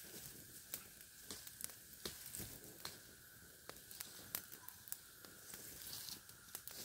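Small campfire crackling, with irregular sharp pops and snaps over a faint hiss.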